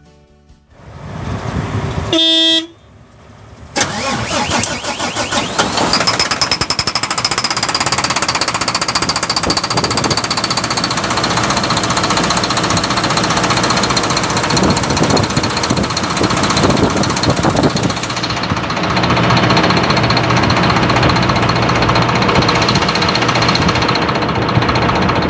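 Volvo FM 370 truck's diesel engine starting and then running steadily. A short horn-like beep sounds about two seconds in, and a high whine rises a few seconds after the start and then holds. The engine starts easily with its orange information data-link wire cut, which gets around the mismatched chassis ID on the replacement engine ECU.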